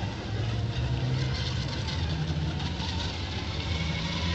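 Radio-controlled racing boats running at speed on the water, a steady motor hum that shifts in pitch over a spray-like hiss.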